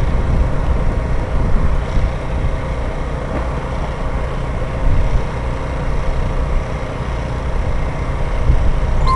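Steady low rumbling noise with a faint steady hum above it.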